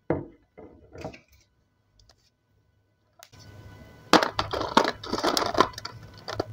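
Hard chunks of uzu (edible clay) clicking and rattling against a small glass bowl and each other as fingers pick through them. This is a dense run of sharp clicks and scrapes that starts about three seconds in and is the loudest part. There are a few soft handling sounds at the start.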